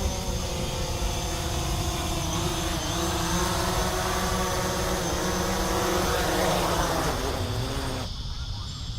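DJI Mavic Pro quadcopter's propellers whining steadily in flight, the pitch wavering slightly, over a constant high shrill of cicadas. The drone whine cuts off suddenly near the end.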